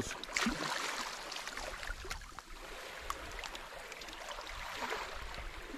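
Small waves lapping gently at the rocky water's edge, an even soft wash of water, with a few faint clicks.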